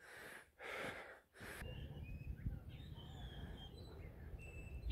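Two short breathy puffs, like breaths or snorts close to the microphone, then faint birds chirping now and then over a low outdoor rumble.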